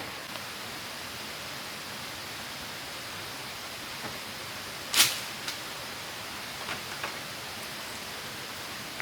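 Steady rushing of a waterfall, with one sharp knock about five seconds in and a few fainter taps just after.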